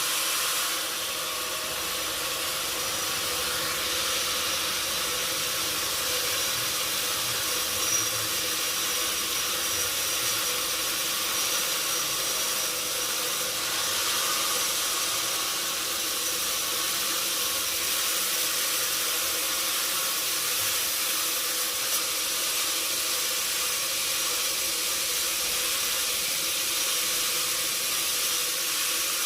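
Sawmill machinery running steadily: a continuous hiss with a faint underlying hum and a couple of small clicks.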